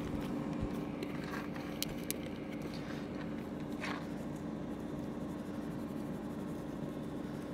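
Ninja air fryer running on air fry while it preheats: a steady hum from its fan with a faint hiss, and a few soft taps and scrapes over it.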